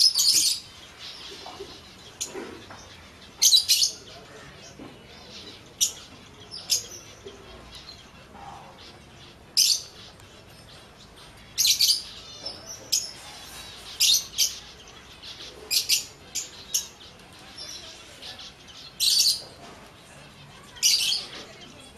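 Scaly-breasted munias (Indian spice finches) giving short, high chirps, some single and some in quick pairs, at irregular intervals of one to three seconds.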